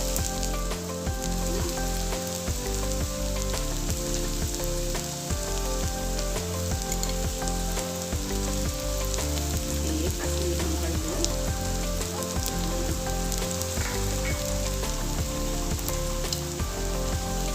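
Ginger-garlic masala frying and sizzling in hot oil, with Kashmiri chilli powder just added, while it is stirred in the pan.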